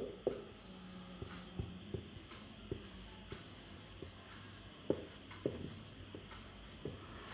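Whiteboard marker writing on a whiteboard: a string of short, irregular taps and scratches as the pen strokes the board.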